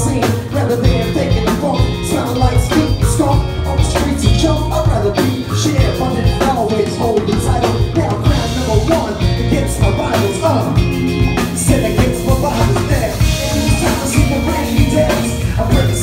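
A live band playing, with drums and a heavy bass line, and a rapper's voice through the PA over the music.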